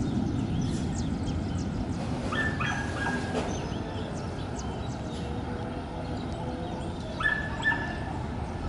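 The low rumble of thunder dying away, over a steady low noise, while a dog yips and barks in two short bouts about five seconds apart.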